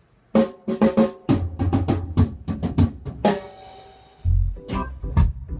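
Drum kit played in a roots reggae session: a quick run of snare and tom strokes, then a cymbal crash about three seconds in. A deep, sustained bass comes in under the drums near the end as the groove starts.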